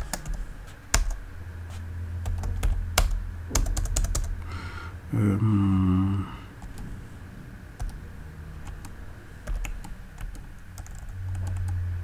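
Computer keyboard typing: scattered, irregular keystroke clicks as terminal commands and a password are entered. About five seconds in there is a short hummed voice sound, louder than the keys.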